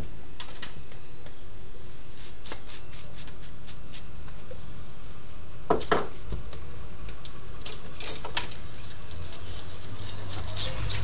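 Scattered light clicks and taps of barber's tools and items being handled at the counter, with two louder knocks about six seconds in, over a steady low hum.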